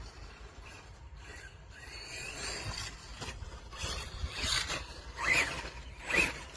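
Small RC truck running: tyres scrape and rub over the ground, and the motor whines up and down in short bursts, loudest twice near the end.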